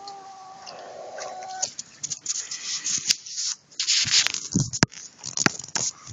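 A chicken's drawn-out call for the first second and a half. It is followed by loud rustling and scraping noises with several sharp clicks.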